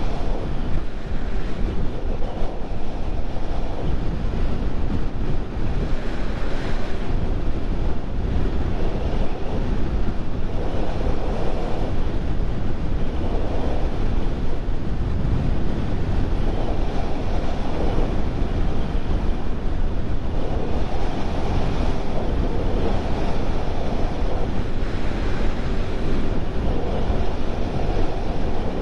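Steady wind noise on the microphone of a moving motorcycle, with the Bajaj Pulsar NS 200's engine and tyres running underneath at road speed.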